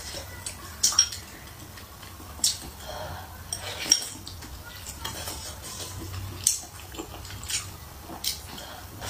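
Wooden chopsticks clicking against a ceramic rice bowl, several separate sharp clicks, between close-miked mouthfuls of eating.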